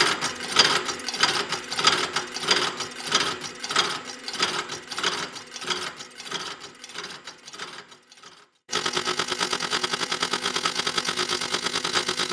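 Machine saw slicing through a clamped stack of steel rings, a dense rhythmic clicking and chatter of the cut. About eight seconds in, the sound drops out briefly and comes back as a steadier, faster even rhythm with a steady hum.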